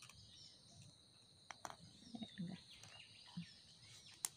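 Faint steady high-pitched drone of insects, with a few soft clicks and taps and one sharper click near the end.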